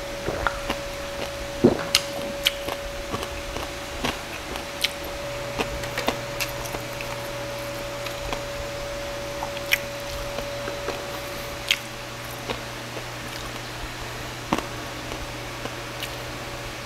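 Close-miked eating of crispy roast pork belly (lechon liempo): a swallow of water, then wet chewing with scattered sharp clicks and crackles. A steady hum runs underneath.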